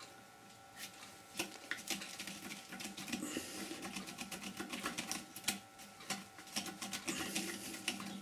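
Wood lathe running with a faint steady hum while a turning tool cuts into rotten, cracked green wood, giving irregular rapid scratchy clicks.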